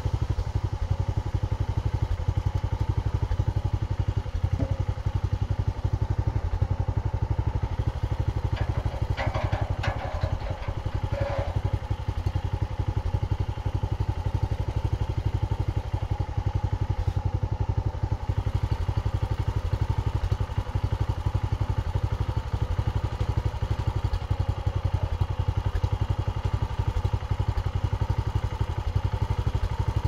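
Portable bandsaw mill's gasoline engine idling steadily, with a few brief clanks about a third of the way in.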